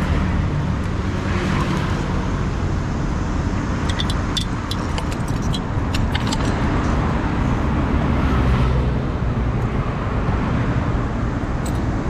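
Steady road traffic from passing cars. A few light metallic clicks come around four to five seconds in, as the bicycle's padlock and key are handled.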